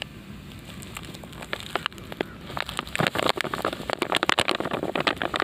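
Sulphur 80% WDG fungicide granules pouring out of a plastic bag onto a heap of sand: a pattering of many small ticks, sparse at first and thickest in the second half.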